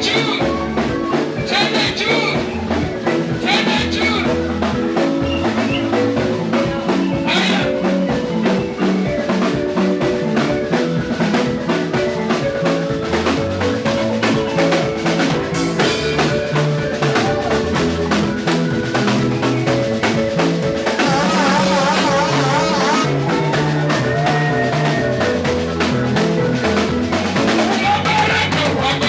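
Live band playing an instrumental passage: a drum kit keeping a steady beat with rimshots under sustained keyboard chords, with a few brief sung phrases near the start.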